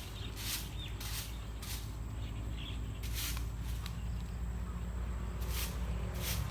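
Dog chewing food, with short crunches coming at irregular intervals and a pause of a couple of seconds in the middle, over a steady low rumble.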